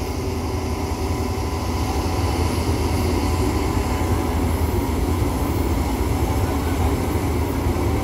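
Heavy diesel engines of Shantui DH17 crawler bulldozers running steadily as one dozer works to push the other out of deep sand: a deep, even drone with no change in revs.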